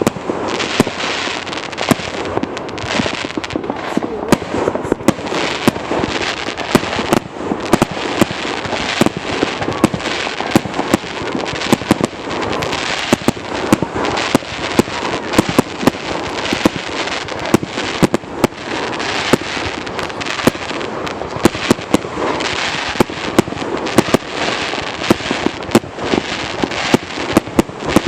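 Fireworks going off without a break: a dense string of sharp bangs and pops, some much louder than others, over a steady crackling hiss.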